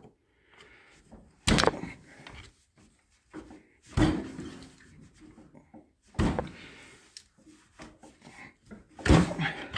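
Four hammer blows, a couple of seconds apart, on a screwdriver wedged into the seam of an Allis-Chalmers WD45 tractor being split between engine and transmission. Each strike is a sharp metallic knock with a short ring.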